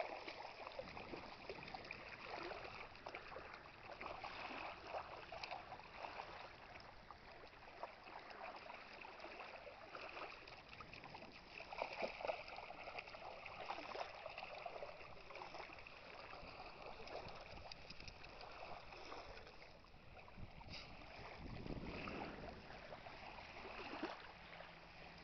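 Shallow lake water splashing and trickling as a pug wades through it at the shoreline. The splashing is faint and rises briefly about twelve seconds in.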